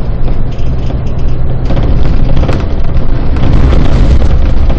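A city bus under way, heard from on board: a heavy, loud low rumble of engine and road with a steady engine hum, getting louder and rougher about two seconds in.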